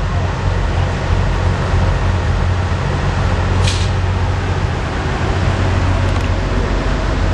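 Heavy diesel engine running steadily under a constant rumble, with one short hiss of air about halfway through.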